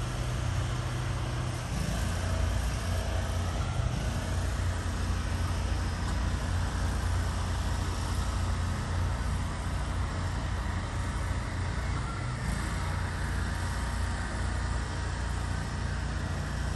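Diesel engine of a heavy-haul truck running steadily under load as the rig hauls a steel bridge beam; the engine note gets louder and shifts up about two seconds in.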